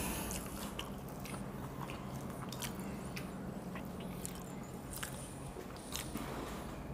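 Eating sounds: chewing, with soft wet squishes and scattered small clicks of fingers mixing rice and curry on plates. A low steady hum runs underneath.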